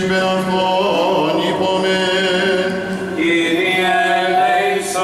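Greek Orthodox Byzantine chant: a sung melody moving over a steady held drone (the ison), with a new phrase beginning about three seconds in.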